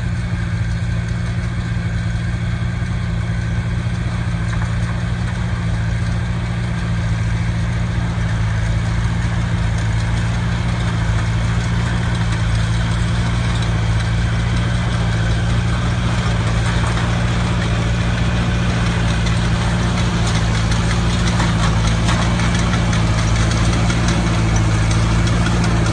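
Heavy farm machinery engine running steadily under load, a constant deep drone that grows a little louder in the second half.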